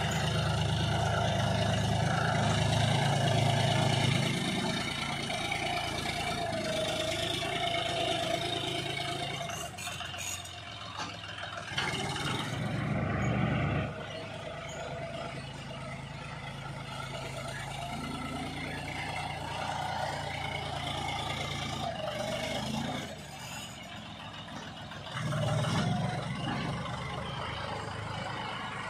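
John Deere 5310 tractor's three-cylinder diesel engine running under load as its front dozer blade pushes soil and gravel. The engine note swells and eases several times, loudest in the first few seconds, again about halfway through and once more near the end.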